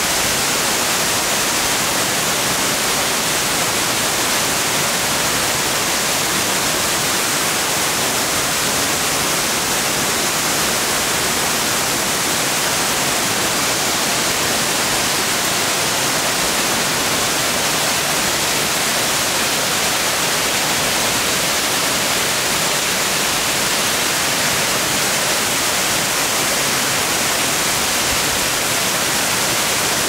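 Tall waterfall plunging into a pool: a steady, unbroken rush of falling water, heavy in hiss.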